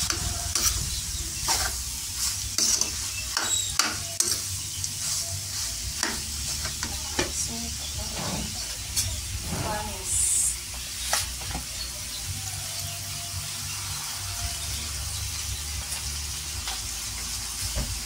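Cockle meat in adobo sauce sizzling in a pan while a metal spatula stirs it, with scattered scrapes and knocks of the spatula against the pan over the steady sizzle.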